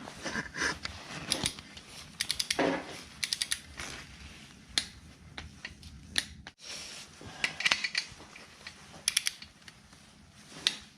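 Torque wrench ratcheting on engine main-cap bolts: short runs of rapid clicks, several times, with scattered single knocks between them.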